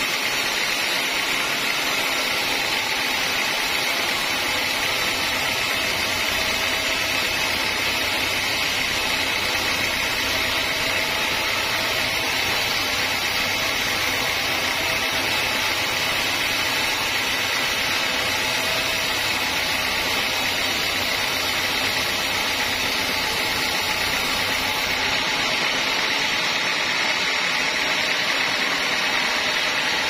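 Sawmill band saw running steadily, its blade cutting lengthwise through a teak log.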